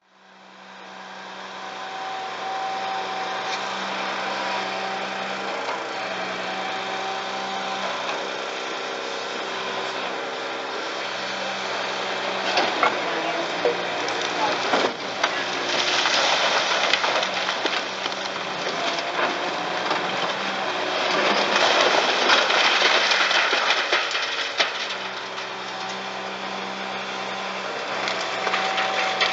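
Volvo EC480E high-reach demolition excavator's diesel engine and hydraulics running steadily, with a steady whine. Masonry crumbles and crashes down in spells about halfway through and again a few seconds later.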